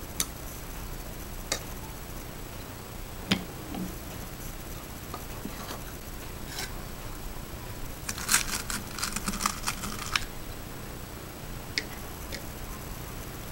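Scattered sharp clicks and light knocks of hands working a homemade shotgun-shell reloading press and its metal parts on a wooden block. About eight seconds in comes a quick clatter of small clicks lasting about two seconds.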